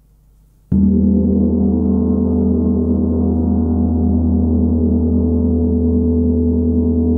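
Large 90 cm Tibetan gong struck once with a soft mallet about a second in, then ringing on with a deep low hum and many overlapping tones that pulse slowly and barely fade.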